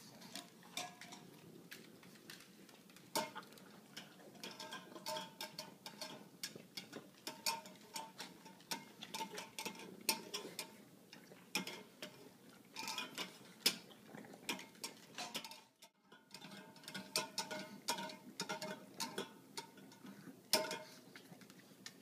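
Dogs eating dry food from bowls in wire stands: a busy run of irregular clicks and clinks, many with a short metallic ring, with a brief pause partway through.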